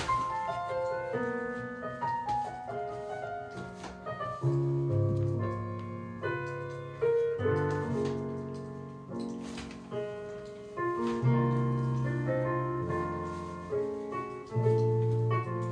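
Background piano music: a gentle melody over low bass notes, each note struck and left to fade.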